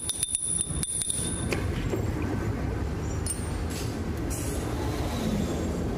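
Steel rod tapping and chipping at a welded steel ring, a quick run of sharp clinks with a high metallic ring that stop about a second and a half in. A steady low mechanical rumble runs underneath throughout.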